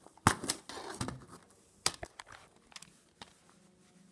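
Plastic multi-disc DVD case being handled and opened: a few sharp clicks, the loudest near the start and another about two seconds in, with plastic rustling between them.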